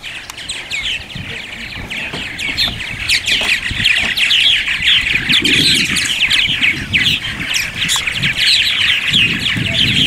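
A colony of purple martins calling over one another: a dense, continuous stream of overlapping chirps that grows busier and louder after the first couple of seconds. A low rumble comes in about halfway and again near the end.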